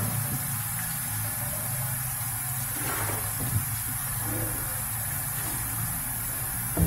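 Steady low machine hum with a faint high hiss, and one light knock about three and a half seconds in as the blue plastic filter housing is handled.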